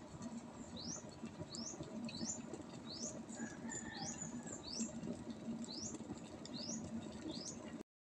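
Standard SEK-2.0LG glass electric kettle heating water, a steady low crackling rumble of bubbles forming as it nears the boil. Over it comes a short, high, rising chirp about every half second or so, and the sound cuts off just before the end.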